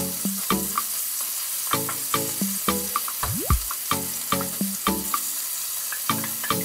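Chicken pieces sizzling in oil in a wok, with a wooden spatula stirring and knocking against the pan two or three times a second.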